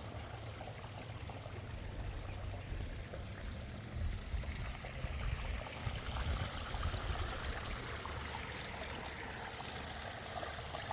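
Water trickling and splashing steadily from a backyard pondless waterfall, with a low rumble that swells about four to seven seconds in.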